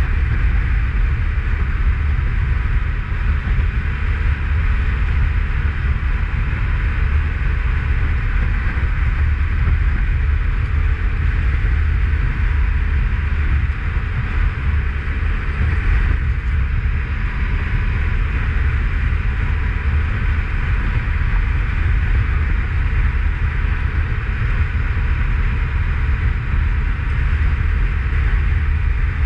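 Motorcycle cruising at a steady speed, its engine and road noise under a heavy, steady wind rumble on the microphone.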